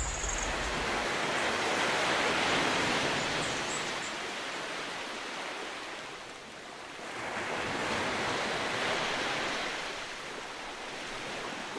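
Ocean surf: an even rushing of waves that swells and fades twice, loudest about two seconds in and again about eight seconds in.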